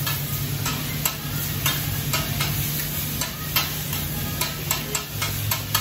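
Yakisoba noodles frying and sizzling on a steel flat-top hibachi griddle while a metal spatula scrapes and taps the plate in quick, irregular strokes. A steady low hum runs underneath.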